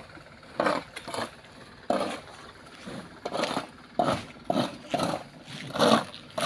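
Loose oil palm fruitlets and grit being scraped and scooped off a gravel road into a sack: irregular short scraping rustles, about one or two a second.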